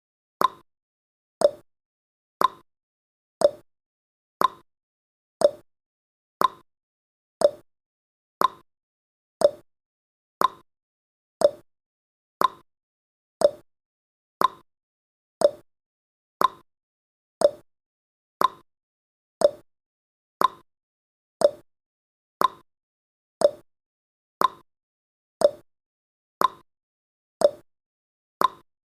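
Countdown timer's clock-tick sound effect, one short tick a second, alternating between a higher and a lower tick.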